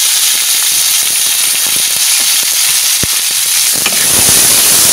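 Chopped onions sizzling in hot mustard oil in a kadai, a steady loud frying hiss. A wooden spatula stirring them knocks sharply against the pan about three seconds in and again near four seconds.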